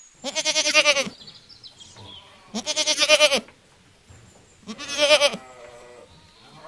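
Goat bleating three times, each bleat under a second long with a trembling, wavering pitch.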